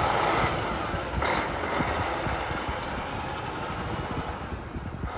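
Diesel engine of a semi tractor pulling away and fading steadily as it drives off, with a brief sharper burst about a second in.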